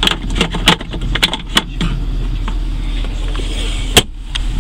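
Plastic clicks and knocks from the truck's centre console storage bin and lid being handled, a quick cluster in the first two seconds, then the lid shutting with one sharp snap about four seconds in. A steady low hum runs underneath.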